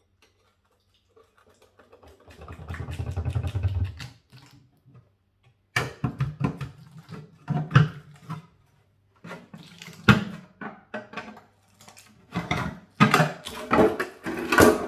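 Oil pan being worked off the bottom of a Toyota 7M-GTE engine block: a brief low rising sound about two seconds in, then a string of irregular metal knocks, taps and scrapes as the RTV-sealed sump is pried loose.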